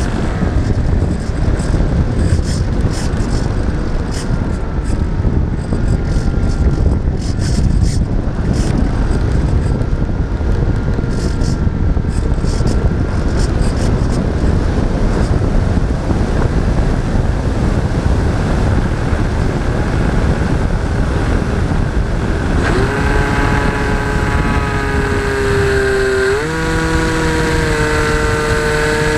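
Wind rushing over the onboard camera of a radio-controlled model airplane in flight, mixed with the plane's propeller motor. About three-quarters of the way in, the motor comes through as a steady pitched drone. A few seconds later it steps up in pitch, as with more throttle.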